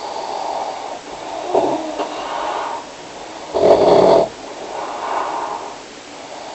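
Snoring: about four noisy breaths in a row, the third, about three and a half seconds in, the loudest and harshest.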